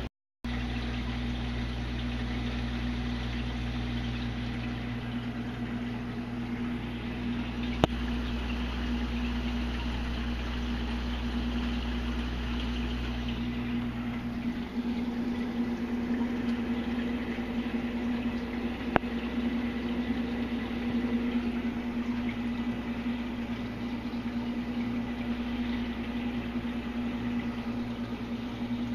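Steady electrical-mechanical hum of a reef aquarium's running pumps and equipment, with a fixed low pitch. The lower part of the hum shifts about halfway through, and two brief sharp clicks break in, one near the start and one past the middle.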